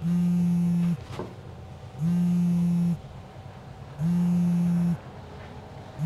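Telephone ringback tone from a phone placing a call: a low steady tone about a second long, repeating three times with a second's gap between, and a fourth starting at the very end.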